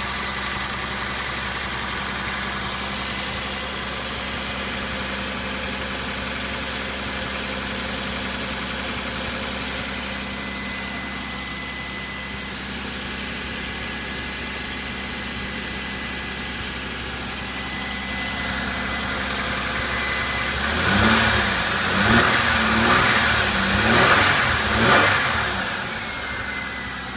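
A 2003 Chevrolet Impala's 3.4-litre 3400 SFI pushrod V6 idling steadily, then revved in several quick surges about three quarters of the way in before settling back toward idle.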